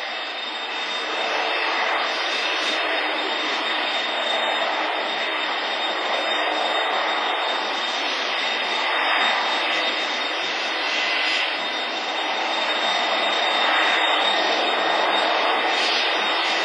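The jet engines of an Airbus A320-232, IAE V2500 turbofans, running while the airliner taxis. A steady rush with a thin high whine over it, growing slowly louder.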